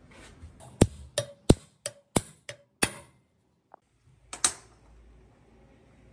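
A quick run of about eight sharp metal knocks, several ringing briefly, then a pause and a double knock, as metal parts are struck or set down during workshop work.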